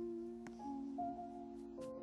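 Background music: slow, sustained held notes, a few at a time, with new notes coming in about every second and a few light clicks.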